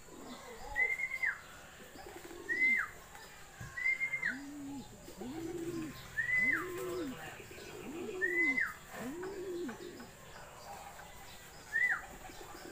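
Pigeons cooing, with four drawn-out low coos about a second and a half apart in the middle, over a short high chirp that repeats about every second and a half, dropping in pitch each time.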